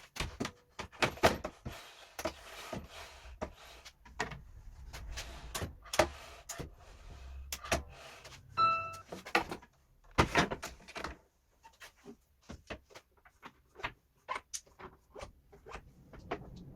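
Hands-on workshop handling at a workbench: irregular knocks, clicks and short scrapes of wood and hardware being moved and set, with a short electronic beep about nine seconds in.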